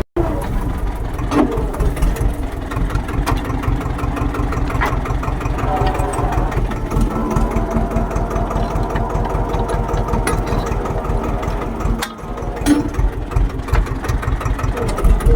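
Farm tractor engine running steadily, with a brief drop in sound about twelve seconds in.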